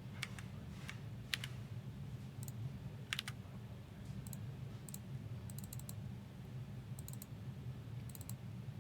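Sparse computer keyboard typing and mouse clicks, a few keystrokes coming in quick clusters, over a low steady hum.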